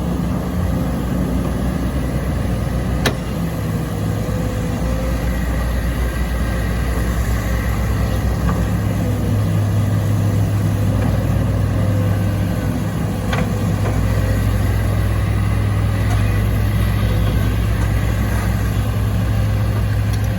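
Kobelco excavator's diesel engine running steadily as it works, with a deep, even drone. There is a sharp knock about three seconds in and a fainter one later.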